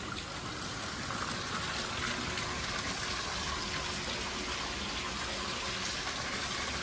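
Steady rushing, hissing noise.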